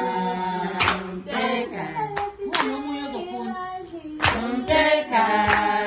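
A group of women singing together, with sharp handclaps landing about every second or so to keep time for dancing.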